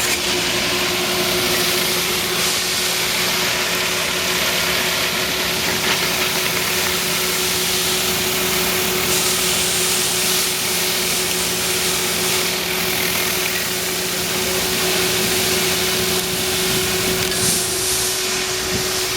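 Spinner tile-cleaning wand at work: a steady hiss of pressure-washer spray and vacuum recovery airflow over a constant motor hum. A lower hum drops out near the end.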